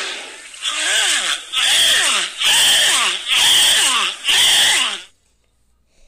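Harbor seal pup calling: five loud, raspy cries in a row, each falling in pitch, then quiet.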